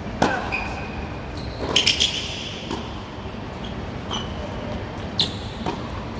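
Tennis rally on a hard court: several sharp racquet-on-ball hits and ball bounces, with short high squeaks of tennis shoes on the court surface.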